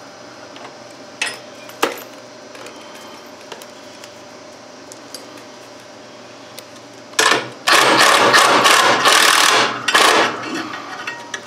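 Cordless impact driver hammering bolts loose on a mower deck's bent plate: a short run about seven seconds in, then a longer run of about three seconds. Before that, only a couple of light metal clicks.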